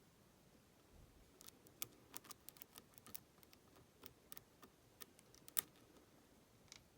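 Faint, irregular metallic clicks of a hook pick and tension wrench working the pins inside a Master Lock 570 padlock, the sharpest click about five and a half seconds in.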